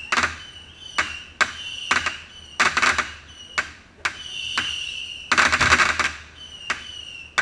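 Fireworks display: single sharp bangs of shells bursting, two dense runs of rapid crackling about three seconds in and again near six seconds, and short steady high whistles between them.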